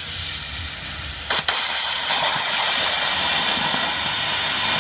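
80 A air plasma cutter's torch arc hissing steadily as it cuts through thick steel plate. A sharp click about a second and a half in is followed by a louder, even hiss.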